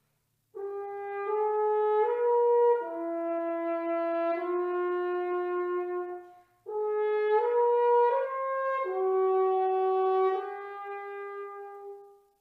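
French horn played solo and unaccompanied: a slow phrase of sustained, stepwise notes, a short break for breath about halfway, then a second phrase that ends on a long held note fading out near the end.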